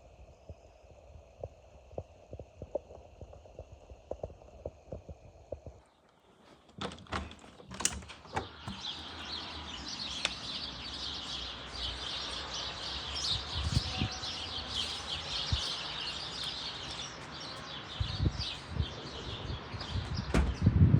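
A dense chorus of many small birds chirping over one another, starting about six seconds in after a sudden break. Before the break there is a steady high hum with light ticks, and near the end a few low thumps.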